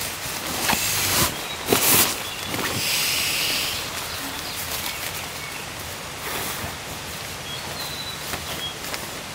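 A handful of sharp knocks and rustles, as of camping gear being handled, in the first three seconds over steady forest ambience, followed by a brief hiss and a few faint short chirps.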